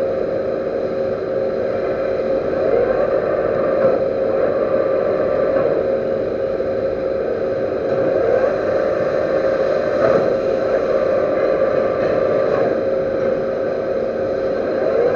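Metal lathe running steadily, with a constant whine and a few brief swells in level.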